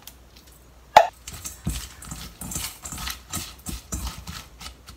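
Sliced cucumber in a bowl being salted and handled: a sharp knock about a second in, then a run of quick, irregular taps and rustles.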